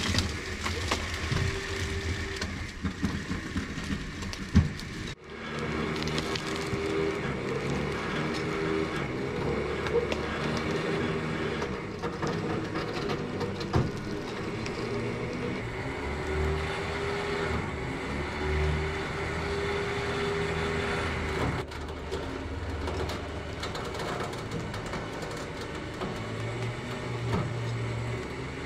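A motor running steadily while the rusted 1955 VW Beetle is drawn over wooden boards onto a trailer, with a sharp knock about four and a half seconds in and another near the middle.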